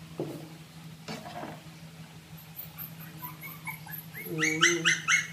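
Shih Tzu dogs whimpering and then yipping in a quick, loud run near the end, impatient for their food. Two light knocks of a serving spoon against a plastic dog bowl come in the first second or so.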